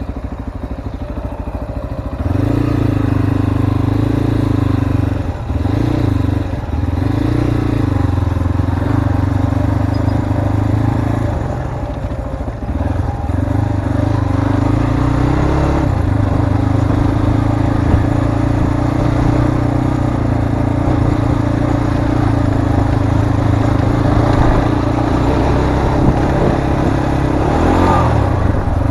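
Zongshen RX3 Cyclone's single-cylinder engine running under way on a dirt track, holding a steady note with brief dips and rises in pitch as the throttle changes and gears shift. The engine comes up louder about two seconds in.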